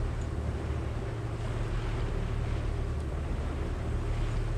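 A motor boat's engine running steadily with a low hum, with wind buffeting the microphone and sea noise over it.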